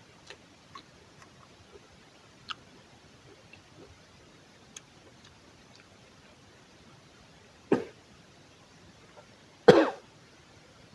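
A person coughing twice, a sharp short cough followed about two seconds later by a louder, longer one, after a few faint clicks.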